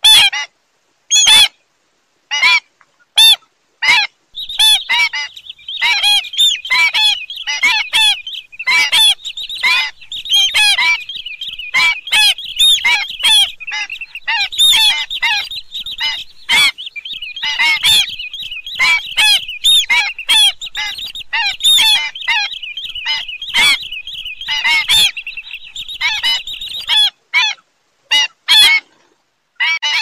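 A flock of pied stilts calling with short, sharp yapping notes. A few spaced calls come first, then many overlapping calls in a dense chorus from about four seconds in, thinning back to single calls near the end.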